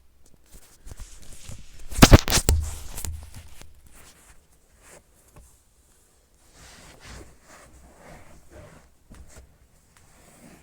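Handling noises: a loud knock and clatter about two seconds in, then faint rustling and small knocks. No vacuum motor is running.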